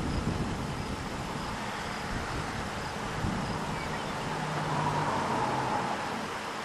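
Steady wind noise with a low rumble underneath, swelling a little about four to six seconds in.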